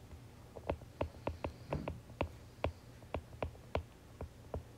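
Stylus tip tapping on an iPad's glass screen while handwriting, a string of irregular sharp clicks about three a second.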